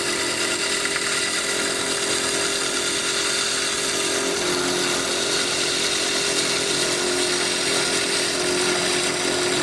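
Wood lathe spinning a stave drum shell while a chisel takes a shaving off it: a steady cutting noise over the machine's even hum, with no break.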